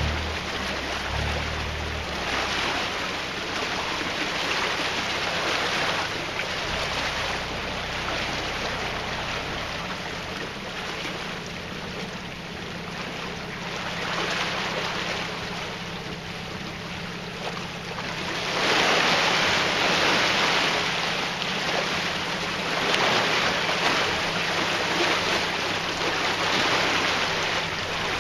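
Water rushing and churning in a canal lock chamber around a narrowboat, with the boat's engine running steadily underneath. The rushing grows louder about two-thirds of the way through.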